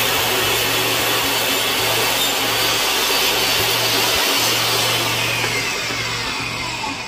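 Portable jobsite table saw running and cutting lengthwise through a pine 2x4, taking one more pass down the center of a quarter-inch groove to clear out the thin strip left in it. A loud, steady whine over a motor hum, easing off slightly near the end.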